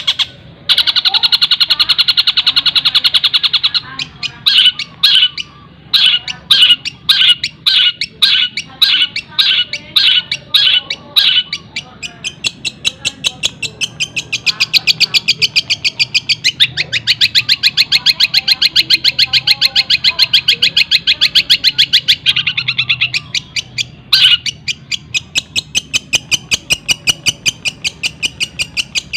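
Long-tailed shrike (cendet) singing loud, fast chattering song mixed with mimicked calls of a kingfisher and sparrows. It alternates dense rapid trills with a run of about two sharp notes a second in the first third.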